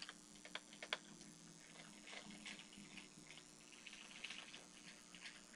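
Near silence with a faint steady hum and a few faint clicks in the first second.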